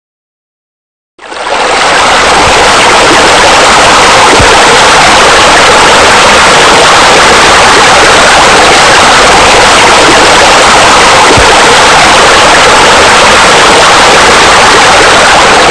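Loud, steady rush of running water, starting about a second in and holding unchanged.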